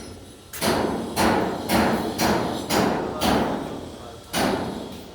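A series of heavy thuds, eight blows at roughly two a second, each dying away quickly, like repeated striking or pounding.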